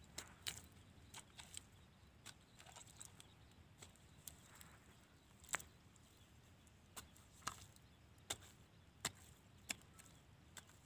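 Faint, irregular clicks and scrapes of a small pointed stick digging into damp mud and breaking out clods, roughly one a second, over near silence.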